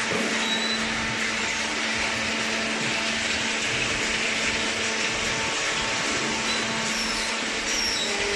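Carton baler machine running: a steady motor whine with a constant hum over a spread of noise.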